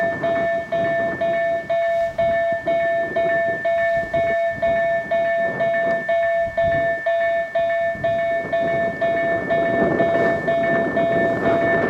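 Railway level-crossing warning bell ringing in an even repeating pattern, about two strikes a second, warning that a train is approaching. A steady rushing noise runs underneath.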